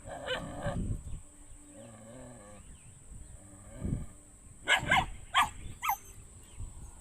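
Dog barking: a short burst just after the start, then three sharp barks in quick succession about five seconds in.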